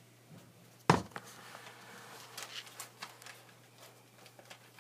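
One sharp knock about a second in, then faint rustling and small handling sounds of paper-backed fusible web and fabric.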